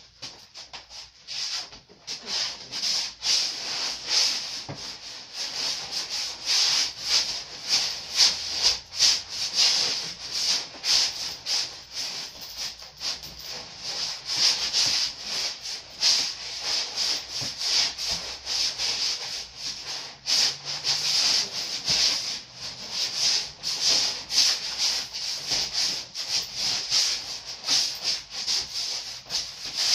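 Leather-soled shoes sliding and scuffing on a hardwood floor in quick shuffling steps: a dense, continuous run of short scrapes that starts about a second in.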